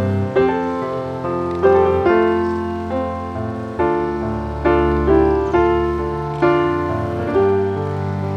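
Background piano music: a slow tune of notes struck about once a second, each left to ring and fade.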